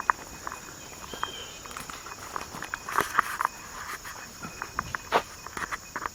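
Irregular footsteps of someone walking, over a steady high drone of crickets or similar insects.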